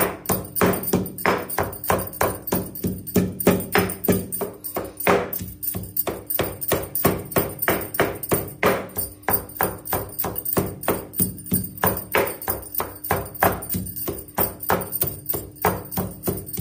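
Stone pestle pounding a moist coconut-and-herb spice mix in a stone mortar (khalbatta), a steady run of dull knocks at about three strikes a second that stops at the end.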